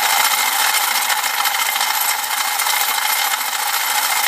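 Molecular motion demonstrator running, its vibrating sides shaking a tray of glass beads so they rattle rapidly and steadily against the tray walls and each other.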